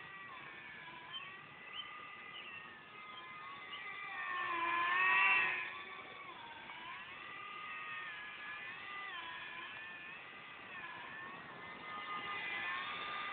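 RC Snoopy Red Baron model airplane in flight, its motor giving a high whine that rises and falls in pitch with the throttle. It grows loudest and highest about four to five seconds in as the plane passes closer, then settles back.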